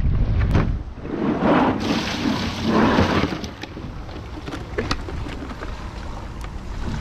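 Wind buffeting the microphone, cutting off about a second in. Then two surges of rushing noise, followed by a quieter stretch with scattered clicks and knocks.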